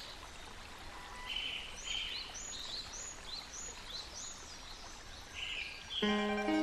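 Small birds singing: a run of short rising chirps and buzzy notes, about two a second, over a faint steady outdoor hiss. Plucked-string music comes in near the end.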